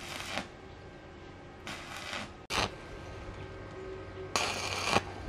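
Stick-welding arc crackling in four short bursts, each a fraction of a second long, with a low steady hum between them.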